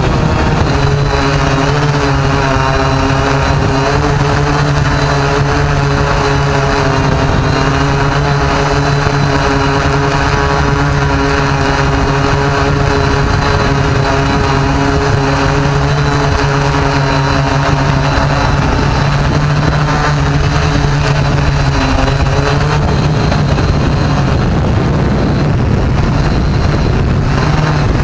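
Quadcopter drone's electric motors and propellers whirring up close, a loud steady buzz. A second set of higher tones joins about a second in and drops away about five seconds before the end.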